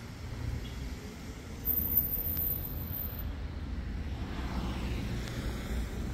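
Street sound of car traffic passing, under a low, uneven rumble of wind buffeting the microphone.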